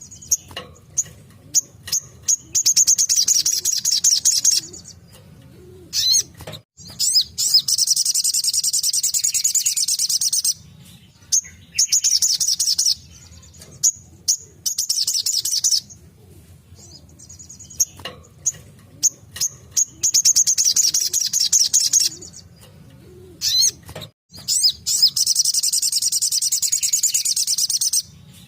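A little spiderhunter (sogon, sogok ontong) sings its rapid-fire 'tembakan' song: bursts of fast, high, shrill trilling a few seconds long, repeated about six times with short pauses between, over a faint low hum.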